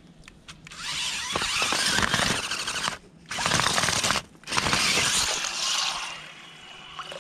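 Electric motors of an amphibious toy RC car whirring as its drum-shaped paddle wheels churn from mud into shallow water, cutting out twice briefly in the middle.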